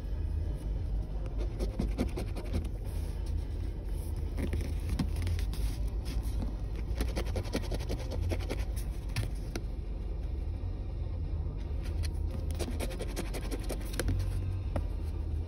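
A penny scratching the coating off a scratch-off lottery ticket in quick, uneven runs of short strokes, over the low steady rumble of a car.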